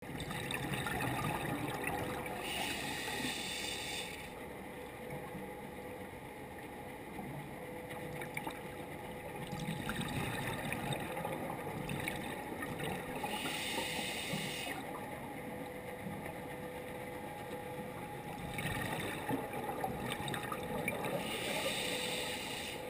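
Scuba regulator breathing picked up underwater: several rushes of exhaled bubbles, each a second or two long and a few seconds apart, over a faint steady hum.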